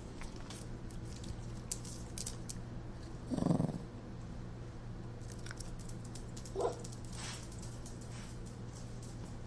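A nervous dog: a short low vocal sound about three and a half seconds in and a brief, higher whimper near seven seconds, with scattered light clicks over a steady low hum.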